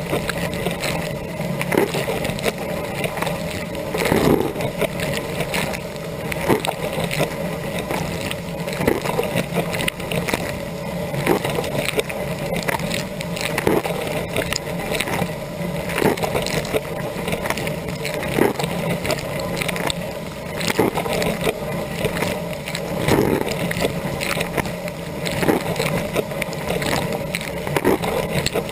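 Dishwasher rinse cycle heard from inside the tub: water spraying against the racks and walls over the steady hum of the wash pump. Louder splashes come back regularly, about every two and a half seconds, as the rotating spray arm's jets sweep past.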